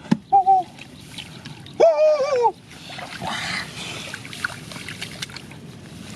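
Hands sloshing and splashing in shallow muddy rice-field water, with scattered knocks and clicks, loudest about three to four and a half seconds in. Two short hooting calls break in, one just after the start and one about two seconds in.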